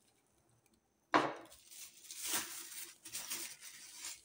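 A thin plastic bag crinkling and rustling in the hands as it is lifted and handled, full of batter. It starts abruptly about a second in and goes on in irregular crackles.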